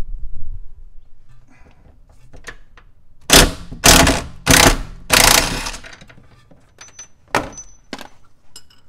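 Half-inch impact wrench with a 15 mm socket hammering in four short bursts, a few seconds in, backing off the nut on the front sway bar bushing bracket. A few light metal clicks follow.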